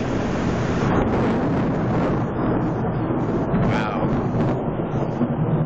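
Thunder rumbling low and steadily under a constant hiss of rain from a summer thunderstorm.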